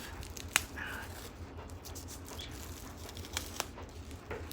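Rustling and crinkling as a covering is peeled off a fresh tattoo, with scattered small clicks and one sharp click about half a second in.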